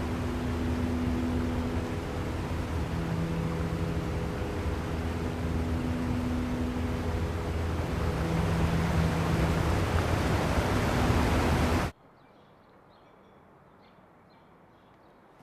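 River rapids rushing: a loud, steady roar of whitewater, with low held tones beneath it that change pitch every couple of seconds. It cuts off abruptly about twelve seconds in, leaving only a faint room tone.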